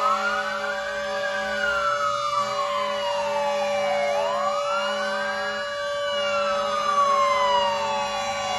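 Fire truck wail sirens. One tone rises quickly, then falls slowly, in a cycle of about four seconds, while a second siren sweeps higher and out of step with it.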